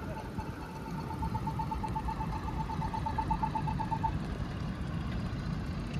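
Pedestrian crossing signal giving rapid, evenly spaced beeps at one pitch, stopping about four seconds in, over a steady low rumble of city traffic.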